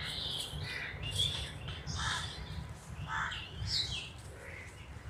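Birds calling: a string of short, separate calls scattered throughout, over a steady low rumble.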